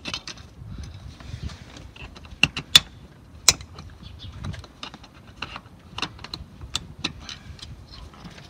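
Plastic covers at the base of a car's rear seat being pried off with a plastic trim tool: a series of sharp plastic clicks and snaps. The three loudest come between about two and a half and three and a half seconds in, followed by lighter clicks and handling rustle.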